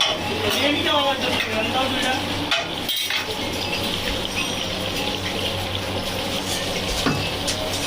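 Chicken frying in hot oil, sizzling steadily, with a metal utensil stirring against the pan and a few clinks.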